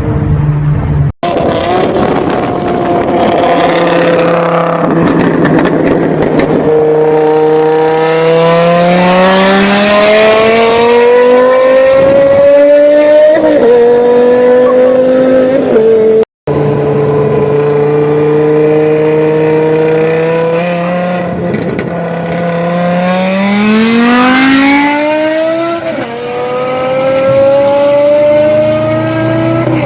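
Supercharged BMW M5 E60 S85 V10 with aftermarket exhaust, accelerating hard: the pitch climbs steadily with the revs and drops back at each gear change. The sound comes as joined clips, cut off abruptly twice.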